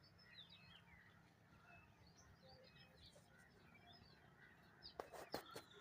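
Faint chirping of small birds, many short calls scattered throughout. About five seconds in come three or four sharp clicks or rustles close by.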